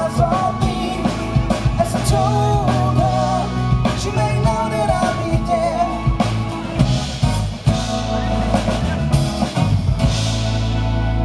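Live pop-rock band playing: acoustic guitar, electric bass, drum kit and keyboard, with a sung vocal line over the first few seconds.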